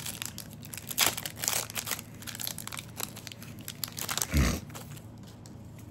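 A trading-card booster pack wrapper being torn open and crinkled by hand, crackling densely for the first couple of seconds and more lightly after, with one dull bump a little past the middle.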